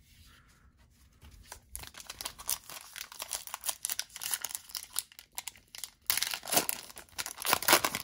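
Foil wrapper of a trading card pack being torn open and crinkled by hand. A dense crackling starts about two seconds in and grows loudest near the end as the foil is pulled apart around the cards.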